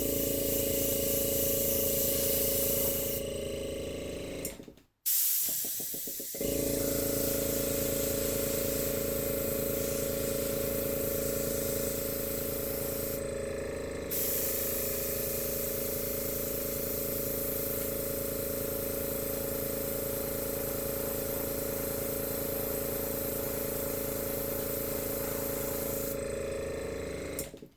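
Airbrush blowing air with a steady hiss over a steady hum. It cuts out for about a second and a half around five seconds in, then runs again. The hiss eases off briefly a few times and the sound stops suddenly at the end.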